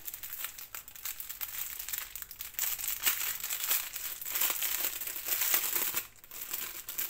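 Thin clear plastic wrapping crinkling and rustling as hands work a small packet of diamond-painting drills out of it, with a short lull about six seconds in.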